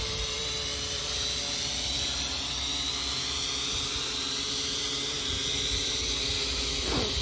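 SJRC S70W GPS quadcopter's motors and propellers whining steadily as it descends on automatic landing, the pitch rising slowly.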